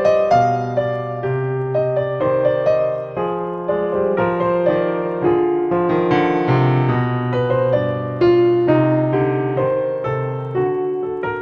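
Background piano music: a calm melody over held chords, with notes changing at an unhurried pace.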